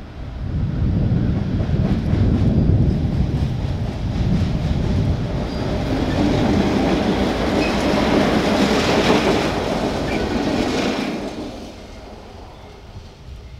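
A group of GE C30-7 diesel locomotives passing close by. A deep engine rumble comes first as the units go past, then a brighter rattle of wheels on the rails for a few seconds, and it dies away a couple of seconds before the end.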